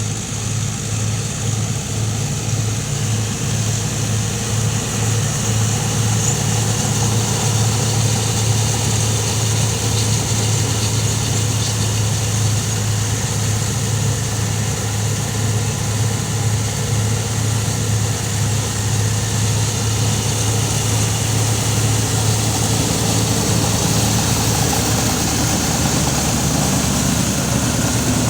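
Tractor engine running steadily at a constant speed, a deep unbroken hum.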